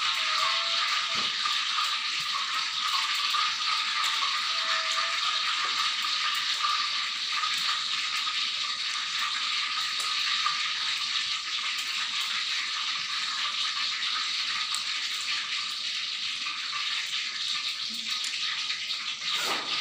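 A steady, even hissing rush that runs on without a break.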